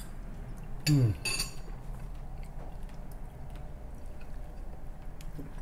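A man's short falling 'mm' of appreciation about a second in, followed at once by a brief clink of a utensil against the glass bowl; after that only a low steady room hum.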